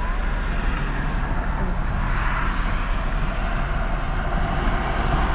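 Road traffic: a vehicle approaching on the road, its tyre and engine noise growing louder from about two seconds in, over a steady low rumble. No horn sounds.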